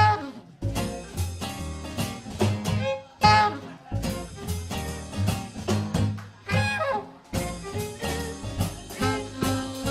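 A live jazz band plays a swing introduction with brass and saxophone over a bass line.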